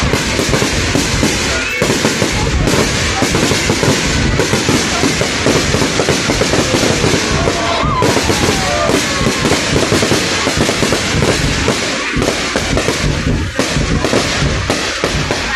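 Fireworks display in a dense, unbroken barrage: shells bursting and crackling in rapid succession, the bangs overlapping with no pause between them.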